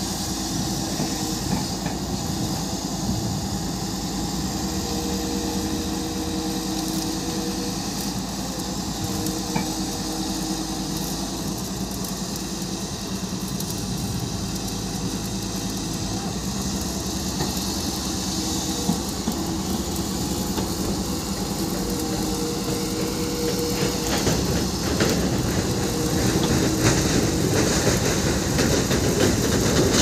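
Tata Hitachi EX210LC crawler excavator's diesel engine running under working load as it digs sand, with a steady whine that comes and goes. It grows louder, with clicks and clatter, over the last few seconds.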